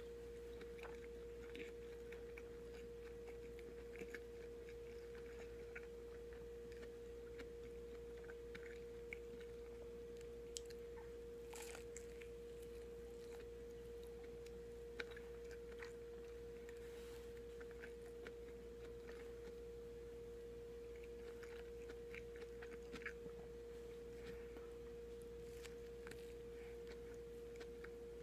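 Quiet chewing and small wet mouth clicks from eating a soft white-bread sandwich with a breaded cutlet filling, over a steady faint hum.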